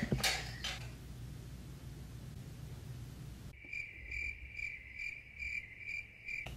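Cricket chirping sound effect, the kind used as an awkward-silence gag. A high, steady chirp pulses about twice a second and starts abruptly about halfway in, while the room's background noise cuts out.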